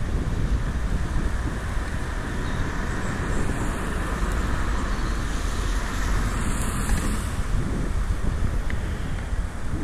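Steady wind rumble on a cycling action camera's microphone, with the hiss of bicycle tyres on a wet road.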